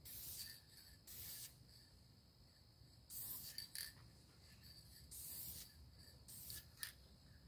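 Wax being rubbed by hand onto the bare wood of a bandsaw box: several faint rubbing strokes, each under a second.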